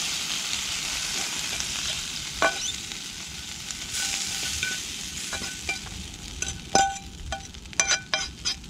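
Hot oil still sizzling in a frying pan, the hiss slowly fading, while a metal fork scrapes an olive, tomato and basil topping out of the pan. Several sharp clinks of the fork against the pan come in the second half.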